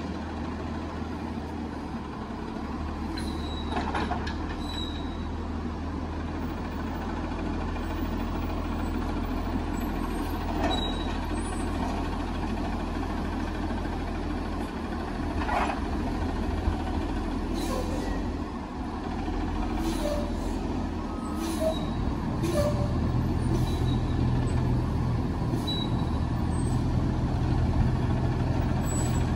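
Autocar ACX front-loader garbage truck's engine running at low speed as the truck creeps forward, with several short hisses of air from the brakes. About three quarters of the way through, the engine speeds up and runs louder.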